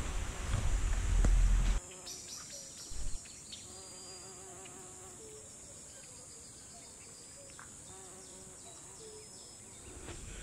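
A low rumble on the microphone while walking that cuts off suddenly about two seconds in. It gives way to a quiet forest background with short, wavering buzzes of flying insects over a steady high-pitched insect whine.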